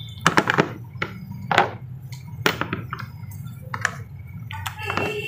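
Small glass poster-colour bottles clicking and knocking against each other and the box as they are packed in by hand: an irregular run of sharp taps.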